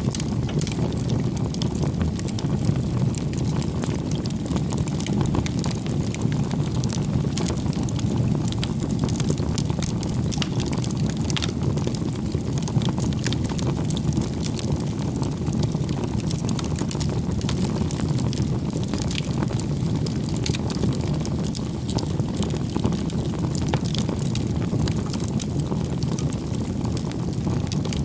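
Wood bonfire burning: scattered crackles and pops over a steady low rumble of the flames.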